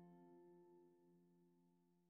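Background instrumental music fading out: a few held notes die away steadily to near silence.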